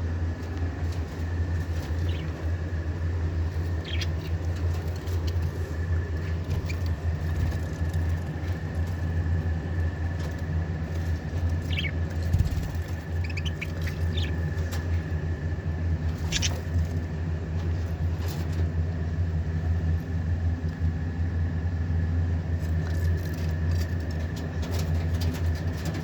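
A steady low hum with a thin steady whine above it, and a few brief bird chirps scattered through.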